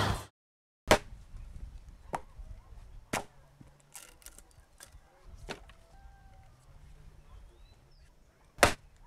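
Axe blows biting into a green wooden pole: a handful of sharp, separate chops at uneven intervals, the loudest about a second in and near the end, with fainter strikes between.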